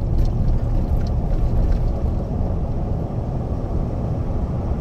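Steady low rumble of road and engine noise inside the cab of a vehicle driving along at speed.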